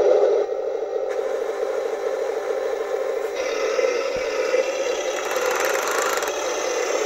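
Heng Long Panzer III RC tank's sound unit playing its simulated engine running: a steady, rattling drone through a small speaker, with a brighter hiss joining about three seconds in.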